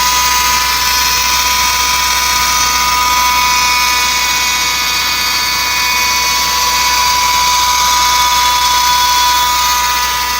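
1990 Acura Integra 1.8-litre engine running with a loud, steady high-pitched whine from the accessory belt drive. The noise comes from a worn air-conditioning compressor belt tensioner pulley that has play in it.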